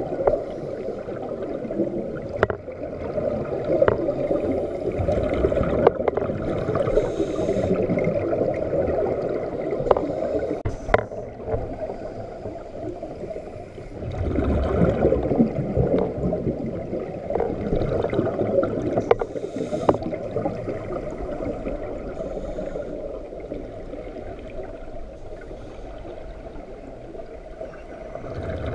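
Underwater recording of scuba divers' exhaled air bubbles gurgling and rising, muffled, swelling and fading every few seconds, with occasional sharp light clicks.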